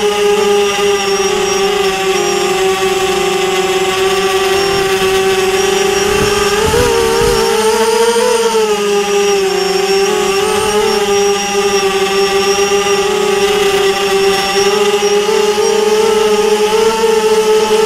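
Drone's electric motors and propellers whining steadily in flight, the pitch lifting and wavering briefly about seven to nine seconds in.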